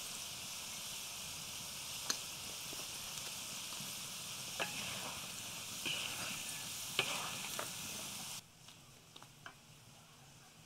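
Potato strips frying in hot oil in a wide pan, sizzling steadily, with a few sharp clicks and scrapes of a wooden spatula stirring them. Near the end the sizzle drops away suddenly to a much quieter background.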